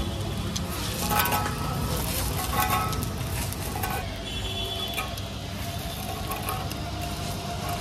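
Metal cutter and spatula clicking and scraping on a flat griddle, over steady street noise of traffic with voices in the background.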